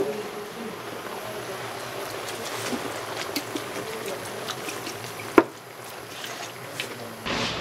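Noodle soup base (mentsuyu) poured from a bottle into a pot of beef and onions: a steady trickle of liquid with faint ticks, and one sharp knock about five seconds in.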